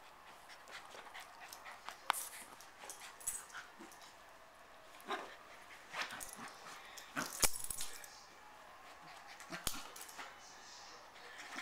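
A dog whimpering and snuffling in short, scattered bursts, loudest around the middle, as it begs to get another dog's bone.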